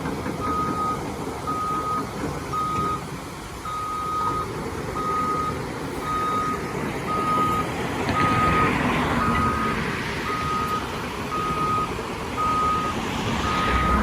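Backup alarm of heavy construction equipment beeping steadily at one pitch, a little under twice a second, over engine rumble that swells about eight seconds in and again near the end.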